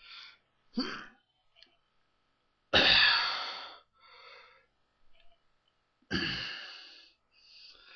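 A man's heavy breathing while straining with effort: sharp blasts of breath out, the two loudest about three and about six seconds in, each fading over about a second, with smaller breaths between.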